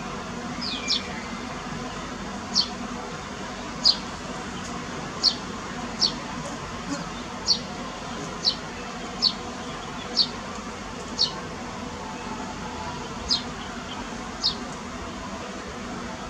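A small bird chirping: about a dozen short, high notes, each dropping quickly in pitch, spaced roughly a second apart over a steady background hum.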